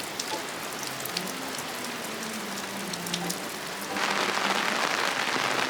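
Rain falling steadily on a surface, an even hiss with scattered fine drop ticks, growing louder about four seconds in.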